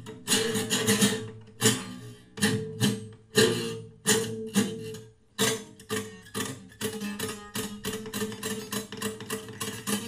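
Steel-string acoustic guitar strummed hard, its chords ringing over a steady drone note. The strokes come as separate accented strums at first, then turn into quicker, even strumming about halfway through.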